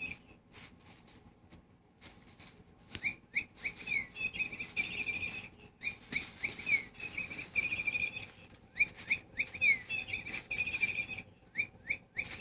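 Electronic toy bird chirper giving clusters of quick, high chirps, set off each time the cat moves it. The first few seconds hold only faint rustling before the chirps begin about three seconds in and come back in several bursts.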